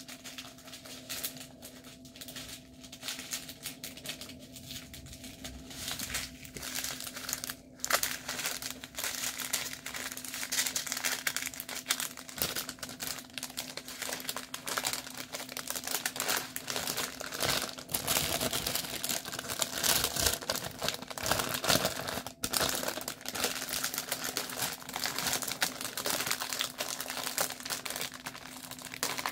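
Plastic packaging crinkling and rustling in the hands, with bags of diamond-painting keychain parts being handled and opened; it gets busier about eight seconds in and keeps going. A faint steady hum sits underneath.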